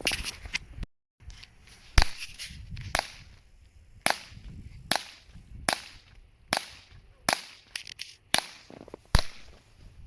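CZ P-07 pistol firing .22 LR rounds: a string of about nine single shots, roughly one a second.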